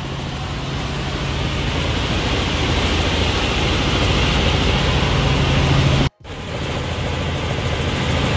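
Helicopter in flight heard from inside the cabin: a steady engine and rotor drone with a low hum underneath. It cuts out abruptly about six seconds in and comes back.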